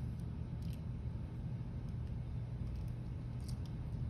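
Steady low room hum, with a few faint small clicks of a screwdriver and grip screw being handled against a derringer's grip, once about a second in and twice near the end.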